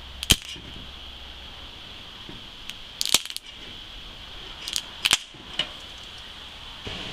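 Paper power-factor-correction capacitor element breaking down under applied voltage: sharp electrical cracks at irregular intervals, about five, the loudest near the start, about three seconds in and about five seconds in.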